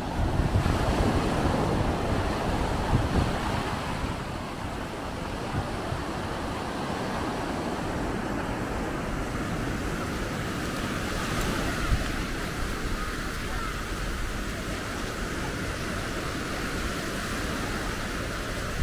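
Sea waves washing on the shore, with wind on the microphone; louder in the first few seconds.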